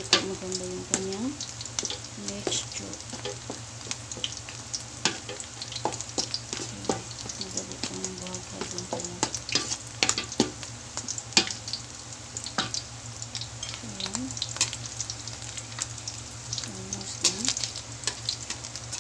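Alamang shrimp fritters (okoy) shallow-frying in oil in a wok: a steady sizzle with frequent sharp crackles and pops.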